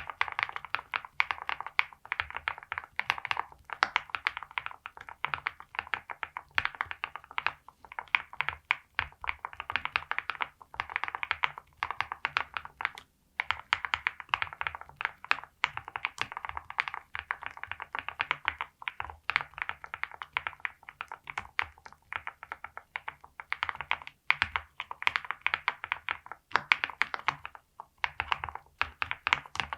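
Typing on a NAGARE80 Barista custom keyboard built with a polycarbonate plate and full foam, linear Flower Shadow switches lubed with Krytox 205, and VARO PBT keycaps. It is a steady run of keystrokes with a brief pause about 13 seconds in.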